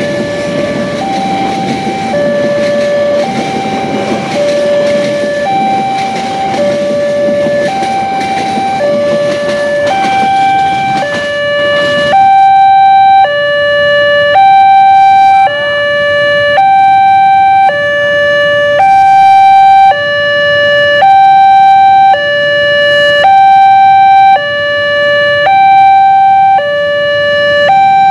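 Level-crossing warning alarm sounding an electronic two-tone signal, alternating between a higher and a lower tone at a slow tempo. For the first twelve seconds or so a passing train rumbles underneath; then the alarm sounds alone and louder, about one tone a second.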